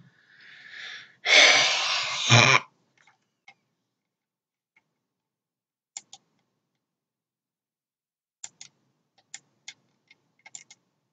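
A person draws a breath and lets out a loud, rushing burst of breath about a second long, close to the microphone. Later come scattered light clicks, as of a computer mouse.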